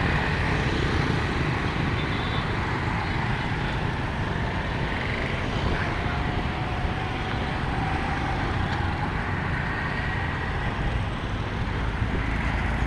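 Steady road traffic: the continuous mixed engine and tyre noise of passing vehicles, with a faint engine tone rising slightly about six to eight seconds in.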